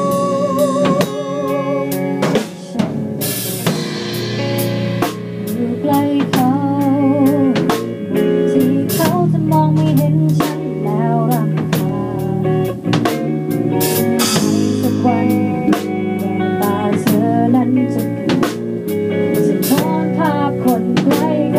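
Drum kit with a 10-inch snare played in a band, steady snare, kick and cymbal hits several times a second over sustained guitar notes, some bent with vibrato.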